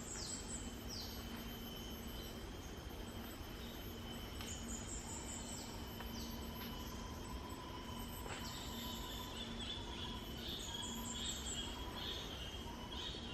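Tropical forest ambience: birds calling with repeated short downward-sliding whistles over a steady high-pitched insect drone and a faint low hum.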